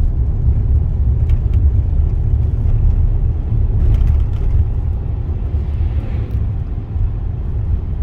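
Steady low rumble of a car driving, road and engine noise heard from inside the cabin.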